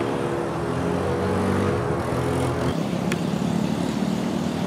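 Small ATV engine running at a steady pitch as a child rides it along a dirt road, its tone growing less distinct after about two and a half seconds.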